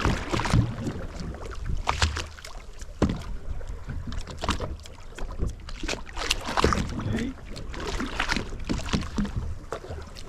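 Water slapping against the hull of a drifting boat in irregular sharp splashes, over a steady low rumble.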